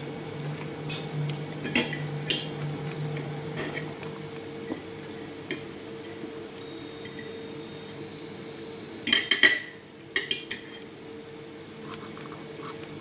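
Stainless knife and fork clinking and scraping against a ceramic dinner plate while cutting a fried fish fillet, in scattered sharp clinks with a quick cluster of them about nine seconds in. A steady low hum runs underneath.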